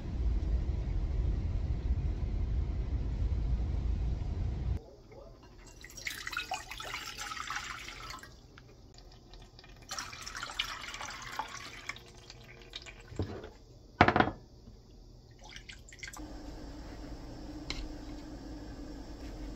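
Low outdoor rumble for about the first five seconds, then water poured from a glass measuring cup into a stainless steel pot in two pours. A few knocks follow, the loudest about fourteen seconds in, and a steady low hum runs through the last few seconds.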